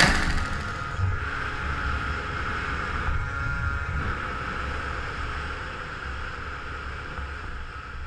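Wind rushing over the microphone of a moving scooter, with a low rumble underneath, slowly fading away.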